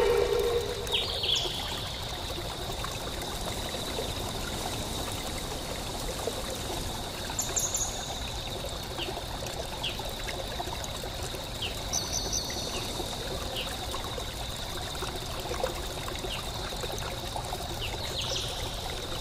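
Water trickling steadily, like a small stream, under a steady high tone. A few brief high bird-like chirps come and go.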